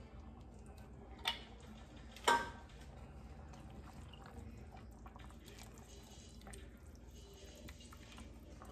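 Canned pinto beans emptied into an enamelled pot of chili: two sharp clinks about a second apart, the second louder and ringing, as the tin can knocks against the pot, then faint wet sounds of a wooden spoon stirring the beans into the sauce.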